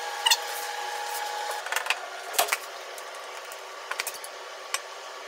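Handling noises of a small plastic food container being set down on a counter and closed: a few scattered clicks and knocks, the loudest about two and a half seconds in, over a faint steady hum.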